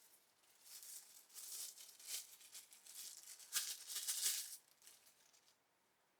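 Packaging rustling and rattling as it is handled, in uneven bursts for about five seconds, loudest near the end before stopping.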